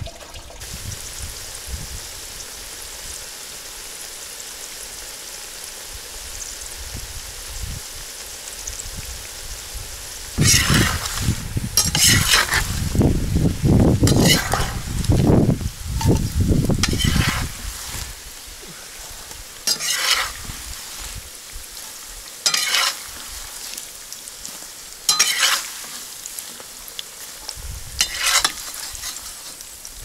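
Young potato wedges frying in hot oil in a kazan: a steady sizzle. Through the middle, a spatula scrapes and stirs the potatoes in a frying pan. Later there are four short loud flare-ups of sizzling, a few seconds apart, as skimmer-loads of potatoes go into the oil.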